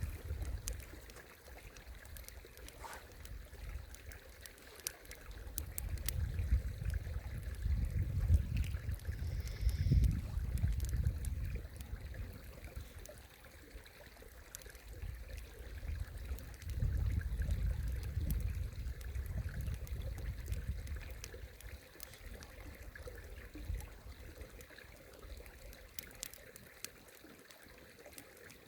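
Campfire burning, with scattered sharp crackles and pops over a soft hiss. A low rumble swells and fades twice beneath it.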